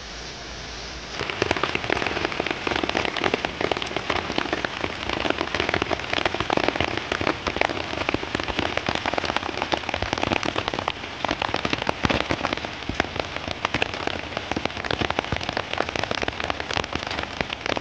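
Rain falling in a dense, loud patter of drops on a surface. It comes in abruptly about a second in, after a softer steady hiss.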